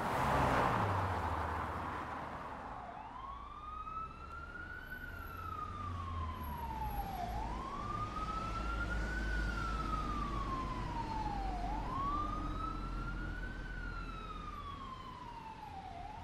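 A loud rush of noise swells at the start and fades over a couple of seconds. About three seconds in, a wailing siren starts, slowly rising and falling in pitch about every four seconds over a low rumble.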